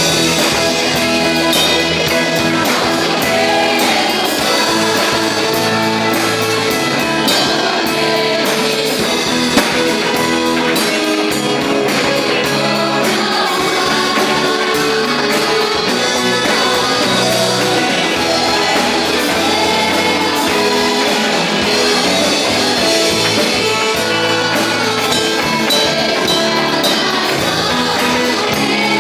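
Live gospel band playing a worship song, with voices singing over guitars and keyboard.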